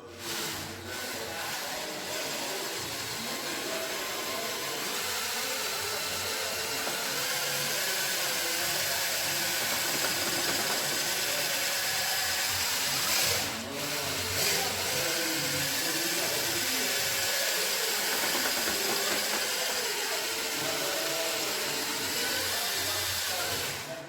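Handheld power tool running steadily, with a brief dip about thirteen seconds in before it picks back up.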